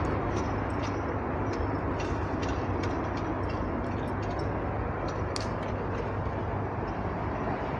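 Steady rumble of road traffic noise, with scattered light clicks and ticks over it.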